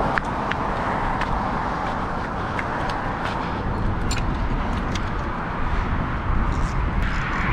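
Steady road traffic noise from cars on the highway bridge alongside, with wind rumbling on the microphone. A few light clicks are scattered through it.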